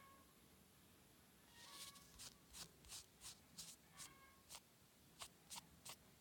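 Light taps or clicks, about two a second, from fingers tapping on a phone screen while typing a message. Otherwise faint.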